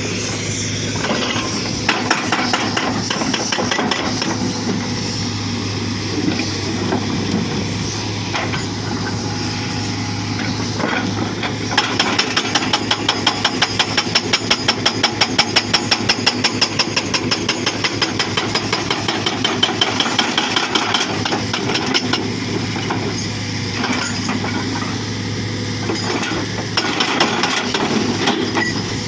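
Hitachi Zaxis 240 excavator's hydraulic breaker hammering rock in rapid, evenly spaced blows, in bursts that stop and start, the longest and loudest through the middle. Under it the excavator's engine runs with a steady hum.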